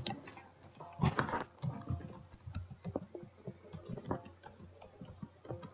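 Typing on a computer keyboard: irregular key clicks, with a louder cluster about a second in.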